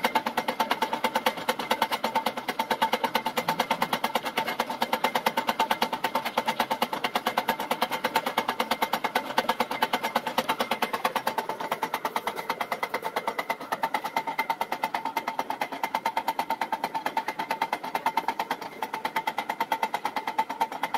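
Running machinery with a fast, even clatter over a steady whine: a front-loading washing machine tumbling, powered from a belt-and-flywheel generator rig.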